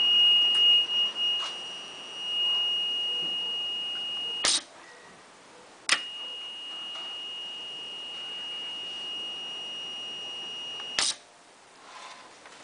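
Water-level alarm on an HHO generator's control box sounding one steady high-pitched tone, the sign that the bubblers hold no water. It cuts off with a click about four and a half seconds in, comes back on with a click about a second and a half later, and stops with another click near the end.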